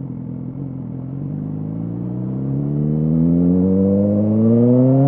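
BMW S1000R's inline-four engine through an Arrow exhaust, running at a steady pitch for about two seconds, then pulling up smoothly in revs and growing louder as the bike accelerates.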